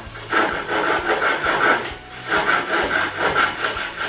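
Narrow hand saw cutting through a plaster ceiling edge with quick back-and-forth strokes, in two runs with a brief pause about halfway.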